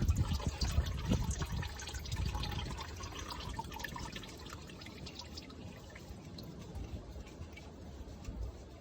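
Engine oil pouring and dripping into a drain pan as the oil filter comes off. The flow is loudest at the start and fades to a light dribble with scattered drips.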